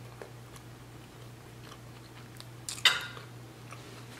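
Close-miked chewing of soft food with the mouth closed: faint wet mouth clicks over a steady low hum. About three seconds in, a single sharp clink with a short ring as a metal fork is set down on the plate.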